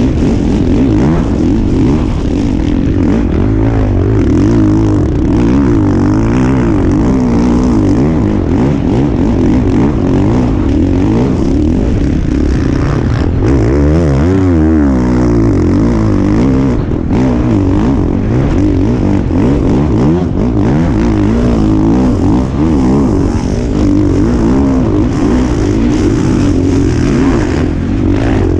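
Dirt bike engine heard from on board, revving up and down continuously as the bike is ridden through deep sand ruts and berms, with a rushing noise over it. About halfway through, the revs climb sharply and then drop back.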